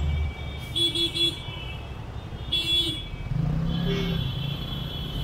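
Slow city traffic with vehicle horns: a quick triple honk about a second in, then a single short honk, over the steady rumble of idling and creeping engines. Near the end an engine's pitch rises and falls briefly as it revs.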